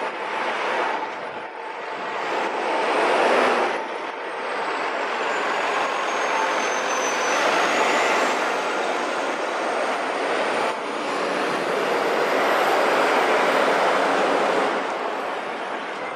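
Street traffic noise: a steady rush of passing road vehicles, heavy ones such as a bus or truck among them.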